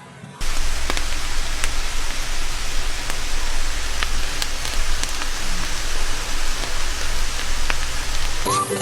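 Food frying in a pan: a steady sizzle with scattered small pops.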